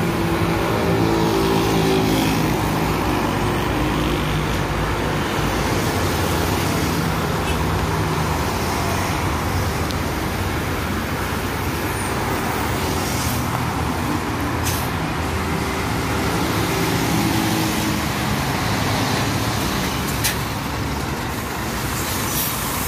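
Road traffic on a busy avenue: cars, trucks and city buses driving past, with the diesel engine of a city bus pulling in to the stop. There are a few short air-brake hisses, one near the end as the bus stops.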